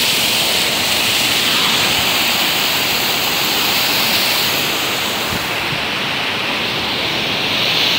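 Public fountain's water falling and splashing steadily into its stone basin, a loud, even rushing that turns a little softer and duller about five seconds in.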